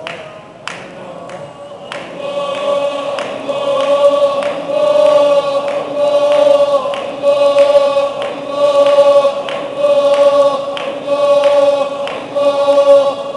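Male Sufi congregation chanting zikr in unison: many voices holding one steady pitch in short, rhythmically repeated phrases, about one a second, that start about two seconds in. A few sharp taps come before the chant begins.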